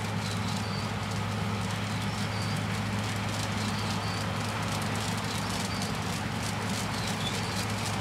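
New Holland combine harvester running steadily while cutting wheat: a constant low engine hum under a busy mechanical rattle with light rapid ticking.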